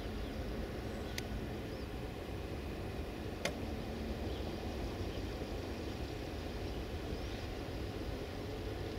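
Steady low outdoor background rumble beside the track, with no train passing. It carries a couple of short, sharp high ticks about one and three and a half seconds in, and a few faint high chirps.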